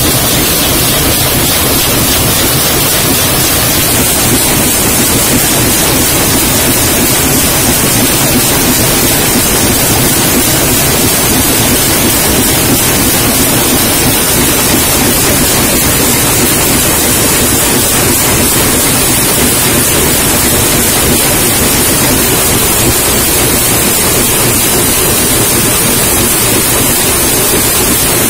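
Loud, steady machine noise of a high-speed metal can-making machine running, a dense unbroken din without distinct strokes.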